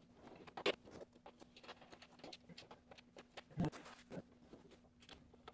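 Sped-up room sound of flat-pack desk assembly: quick small clicks, taps and rustles of panels, hardware and papers being handled, over a faint steady hum. The two loudest knocks come about a second in and past halfway.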